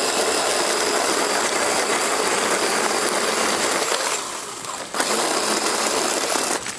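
Power saw cutting through tree limbs, running in a steady gritty buzz that eases off briefly about four seconds in and then cuts again.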